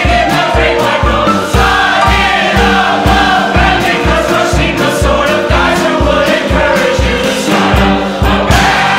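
A group of men and women singing a pop-folk song together, in French, over band accompaniment with a steady kick-drum beat about twice a second. The beat drops out just before the end.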